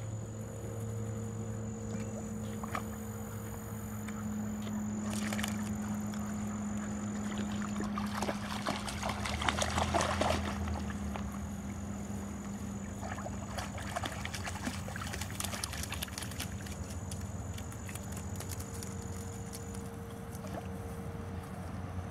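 Water splashing and sloshing as Labrador retriever puppies paddle through a pond, loudest about eight to ten seconds in, over a steady low hum and a thin high whine.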